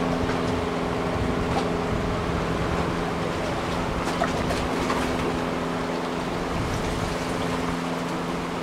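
Boat engine droning steadily, over an even rush of wind and moving water.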